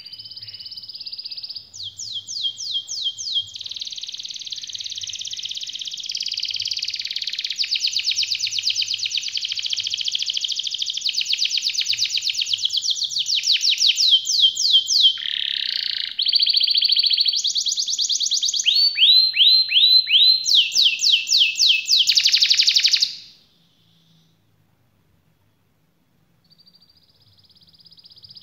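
Domestic canary singing a long, unbroken rolling song: rapid trills, runs of quick falling notes and buzzy held rolls. It stops abruptly about 23 seconds in, then starts again softly near the end after a short pause.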